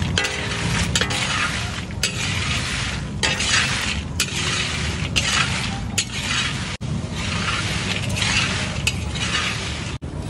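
A metal spatula scraping the iron kadai and tossing dry fried potato chips, with rustling and light clinking of the crisp chips in repeated short bursts over a steady low rumble.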